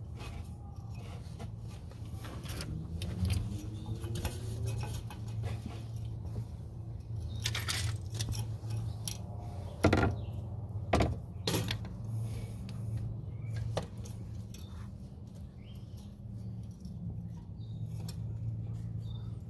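Hand tools clinking and knocking on metal while the starter of a 2011 Hyundai Accent is being worked loose from under the car. There are scattered clicks and two sharp knocks about ten and eleven seconds in, over a steady low hum.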